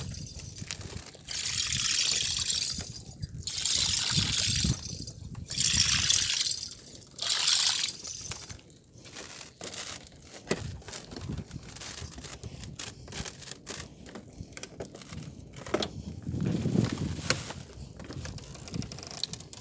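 Water sloshing and splashing against a floating bamboo fish-cage platform, in four surges of about a second each over the first eight seconds, then quieter lapping with scattered small knocks.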